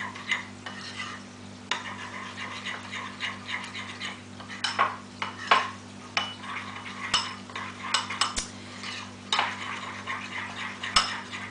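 Metal spoon stirring partly melted chocolate and cream in a ceramic bowl, scraping and clinking against the bowl's sides in quick, irregular strokes.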